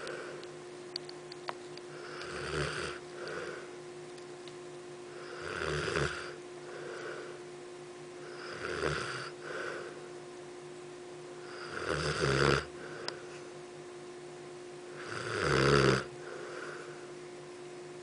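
A sleeping dog snoring, with about five slow snoring breaths roughly three seconds apart, each followed by a softer breath out. The last two snores are the loudest.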